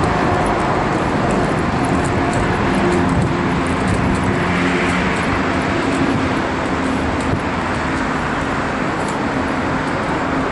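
Steady road traffic noise mixed with the continuous rumble and light rattle of a wheelchair rolling over sidewalk paving.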